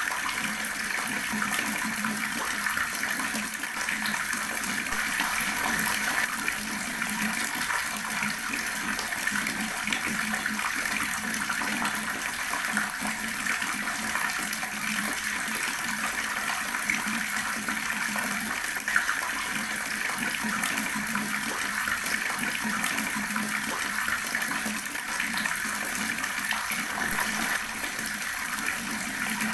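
Water running steadily from an outdoor tap, the stream splashing without a break.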